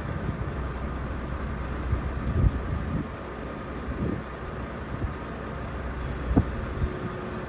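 Komatsu PC210 hydraulic excavator's diesel engine running steadily with a low rumble, with a few faint knocks.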